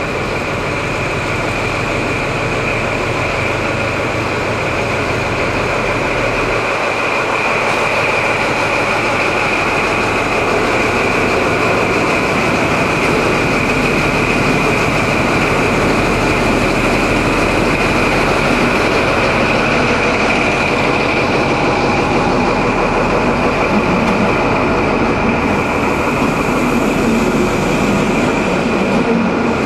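HST Class 43 power car 43048 running as it approaches and passes close by, its diesel engine having the typical sound of a Paxman VP185, with a steady high whine throughout. It is followed by the rolling noise of the Mark 3 coaches going past.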